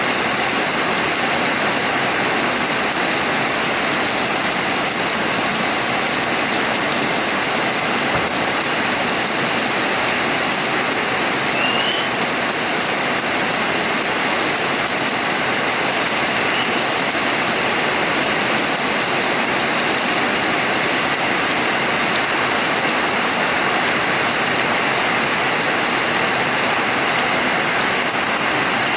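Steady, heavy rain, a dense, unbroken hiss of falling water.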